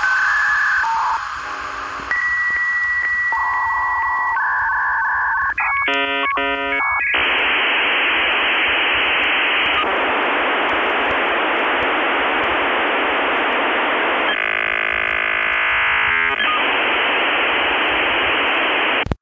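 Dial-up modem connecting: a series of steady beeping tones, a quick warbling exchange about six seconds in, then loud hissing static that turns briefly to a buzzing, striped sound near the end before cutting off sharply.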